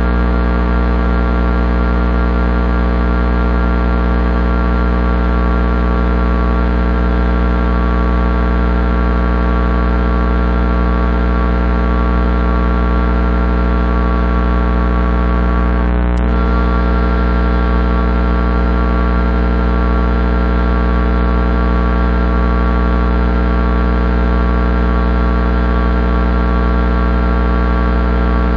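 Electrical transformer humming: a deep, steady drone with many overtones stacked above it, unchanging in pitch and loudness.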